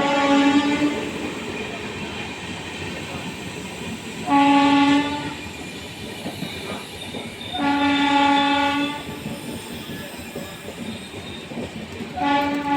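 Indian Railways locomotive horn sounding four separate blasts, roughly every four seconds; the third is the longest. A steady rumble of train running noise fills the gaps.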